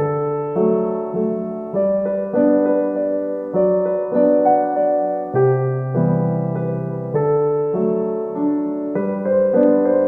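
Background music: soft piano or electric piano playing chords that change every half second or so.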